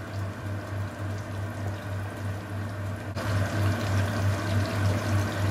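Flour-coated chicken wings sizzling in hot vegetable oil, a steady crackling hiss that grows louder about three seconds in, over a steady low hum.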